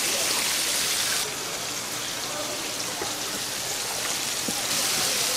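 Steady sizzling hiss of pork pieces frying in a deep fryer of hot oil, with a few soft taps of flour being scooped and tossed in a steel bowl.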